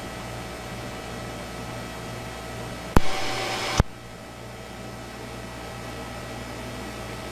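Police radio audio feed with a steady hum and hiss, broken about three seconds in by a loud burst of static lasting under a second that starts and stops with a sharp click: a radio transmission keyed up and released with no words.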